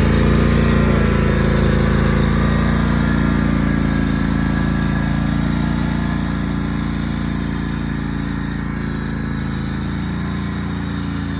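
Riding lawn mower engine running steadily, slowly getting quieter.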